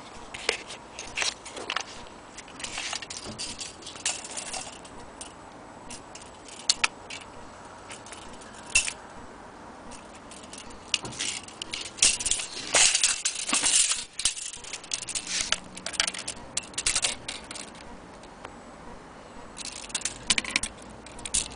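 Scattered light metallic clicks and rattles, thickest a little past halfway and again near the end, from a steel tape measure being handled and laid against an old box camera.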